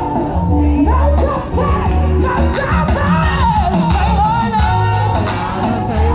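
Choir singing with band accompaniment, the voices carrying a wavering melody over heavy, sustained bass notes.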